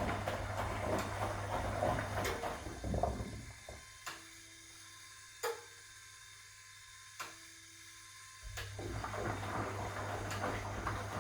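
1961 AEG Lavamat Noris washing machine running, its motor humming while the drum turns and water sloshes. About three seconds in, the machine stops for around five seconds, with three sharp clicks in the pause. It then starts up again.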